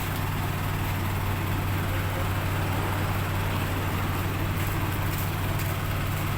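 Isuzu 4HL1 four-cylinder diesel engine idling steadily, running again after a flood-caused crank-but-no-start fault was repaired.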